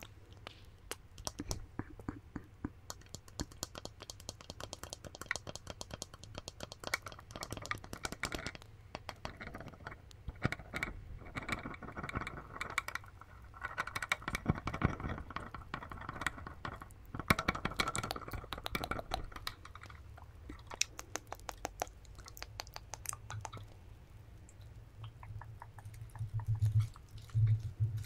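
Long fingernails tapping on a small plastic R2-D2 figure held right against a microphone: a quick, uneven run of light clicks.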